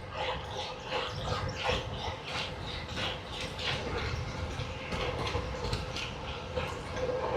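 Noise of a road bike ride heard from the bike: a low rumble of road and wind with a steady hum, and an irregular run of short sharp sounds several times a second.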